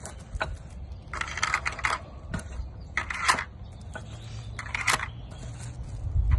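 Rifle cartridges (.223/5.56) clicking and rattling as they are set one at a time into a plastic AR-15 magazine speedloader, a handful of short sharp clicks spaced about a second apart.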